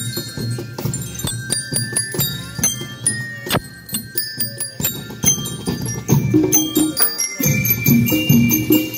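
School rhythm band playing: bell lyres ring out a melody of short, bright notes over drums and small jingling percussion. The music gets louder and fuller about seven and a half seconds in.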